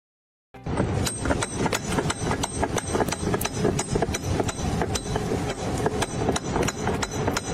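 Rapid, irregular hammer-like knocking and clattering, many strikes a second, starting about half a second in and keeping on without a break.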